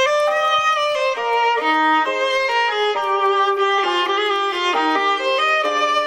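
A recorded piece of instrumental music begins, with a violin playing a melody that steps from note to note over other sustained notes.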